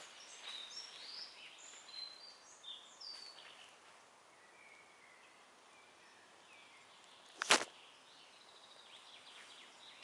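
Forest songbirds singing faintly: short high chirps and whistles through the first few seconds, then a few softer calls. A single sharp knock about three-quarters of the way through is the loudest sound.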